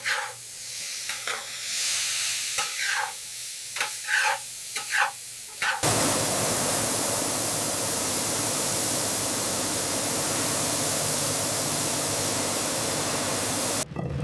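Irregular scraping strokes of stirring in a cooking pot of corn for about six seconds, then a sudden change to a steady, even hiss that cuts off just before the end.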